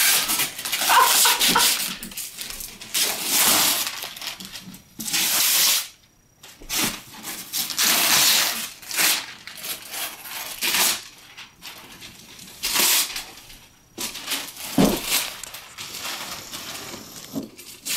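Christmas wrapping paper being torn off a large gift box and crumpled, in a string of irregular rips and crinkles with short pauses between them.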